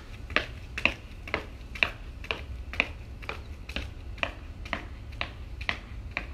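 Sharp, regular ticks about two a second over a low wind rumble on the microphone.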